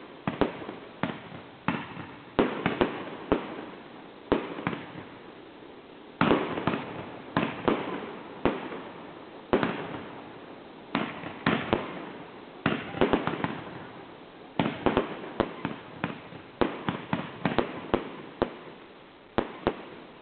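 Fireworks display: a rapid, irregular run of bangs, often several a second, with crackle between them, ending abruptly.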